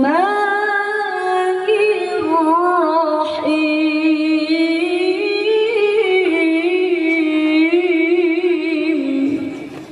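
A woman reciting the Quran in the melodic tilawah style: one long phrase held on a single breath, with wavering ornamented runs of notes, trailing off near the end.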